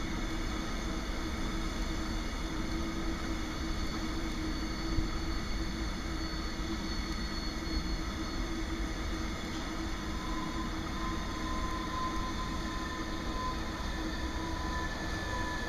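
Container train's flat wagons rolling past, a steady rumble of wheels on the rails. One louder clack comes about five seconds in, and a faint high whine joins about two-thirds of the way through.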